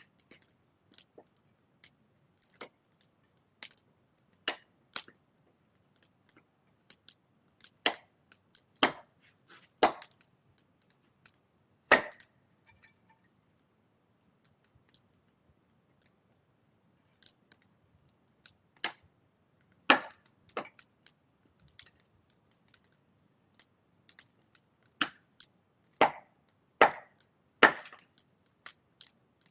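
Firewood being chopped: sharp wooden chopping strikes at an irregular pace, about one to two seconds apart, with a pause of several seconds midway.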